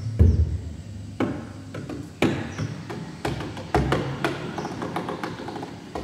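A series of wooden knocks and taps at irregular intervals, about one a second, some ringing briefly after the strike.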